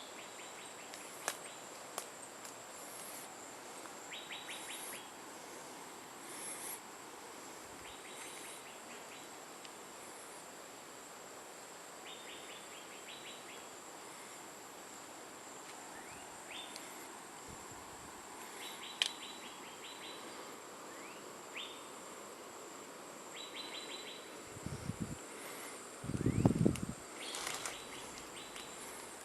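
Tropical forest ambience: a steady high-pitched insect drone, with short rattling chirps from insects or birds recurring every second or two. A few dull low thumps come near the end.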